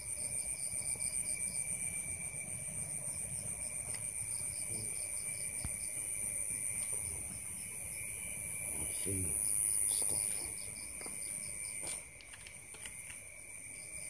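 A chorus of night insects trilling steadily in several high, fast-pulsing layers. A faint low voice is heard briefly about nine seconds in.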